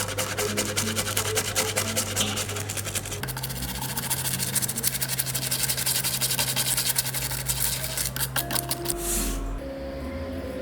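Fast, repeated abrasive rasping strokes on a small die-cast model part, over background music; the rasping stops about nine seconds in.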